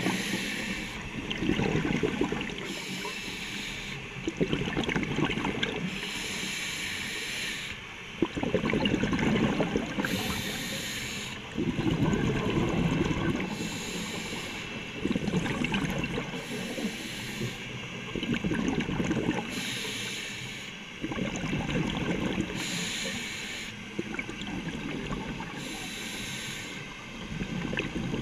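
A scuba diver breathing through a regulator: a hiss on each inhale, then a burst of exhaled bubbles rumbling past, repeating about every three and a half seconds. The bubble bursts are the loudest part.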